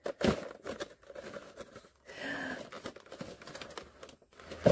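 Cardboard box and clear plastic blister tray being handled: crinkling and scraping as the tray slides out of the box, with a few sharp clicks and knocks.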